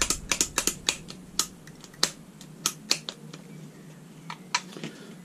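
Irregular sharp clicks and taps, about a dozen in a few seconds, from an Evolution 165 mm circular saw's plastic and metal parts being handled.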